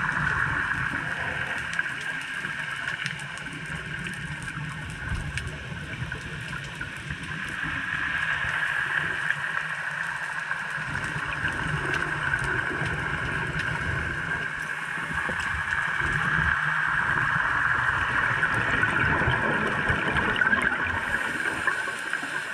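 Muffled underwater sound through an action-camera housing: a steady hiss with gurgling bursts of scuba regulator exhaust bubbles that come and go, and scattered faint clicks.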